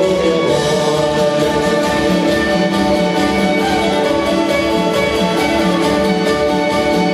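Irish folk band playing an instrumental passage live: a fiddle carries the tune over strummed acoustic guitar, with a steady beat underneath.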